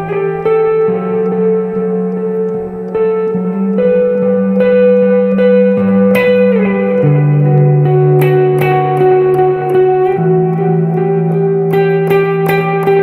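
Electric guitar through a Valeton GP200 ambient patch with a Green OD overdrive, a TS808 Tube Screamer model, set to zero gain, so the tone is only a little dirty. Slow, ringing chords and sustained notes change every second or two, one note slides down about halfway through, and crisper picked notes come in after about eight seconds and again near the end.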